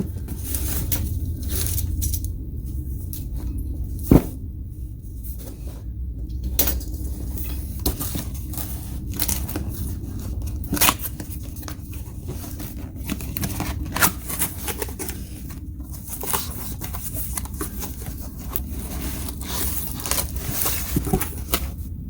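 A cardboard power-tool box being opened by hand: tearing and cutting sounds, cardboard scraping, and scattered clicks and knocks as the flaps and packing are handled, over a steady low hum.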